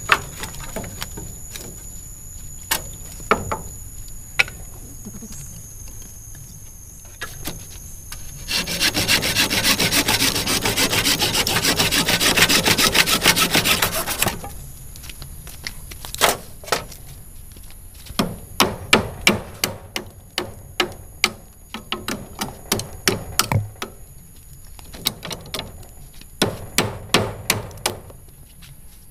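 Wood being worked by hand. There are scattered sharp knocks and taps throughout, and about a third of the way in comes some six seconds of fast, dense rasping strokes, as of sawing or scraping wood.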